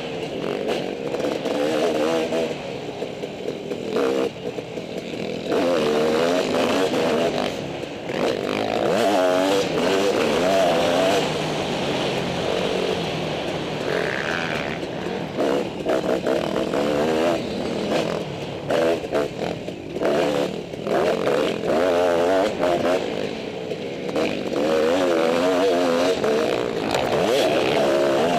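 Dirt bike engine revving up and down over and over as the rider accelerates, shifts and rolls off the throttle for corners on a motocross track, heard close up from the rider's helmet.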